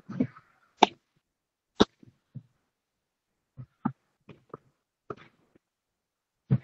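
A scattered string of short clicks and thumps, about a dozen, with dead silence between them, as from an open microphone on a video call whose noise suppression cuts everything else out. The two sharpest clicks come about one and two seconds in.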